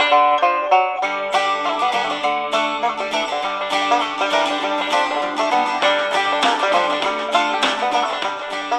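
Eton Grundig Executive Traveler III portable radio playing an FM music station through its built-in speaker: music with fast plucked-string notes.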